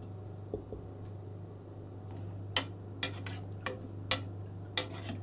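A metal spoon clinking against a pan while stirring jaggery dissolving in water: a handful of sharp, irregular clinks in the second half, over a steady low hum.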